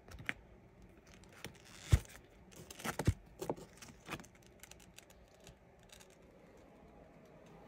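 Comic books being handled and flipped through in their storage boxes: a string of sharp clicks and knocks, loudest about two seconds in, dying down after about four seconds to faint room noise.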